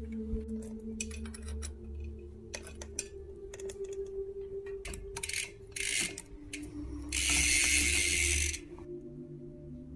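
Mountain bike chain clinking and rattling as it is threaded by hand over the chainring and through the rear derailleur, with a loud metallic rasp of the chain being drawn through for about a second and a half near the end. Background music plays throughout.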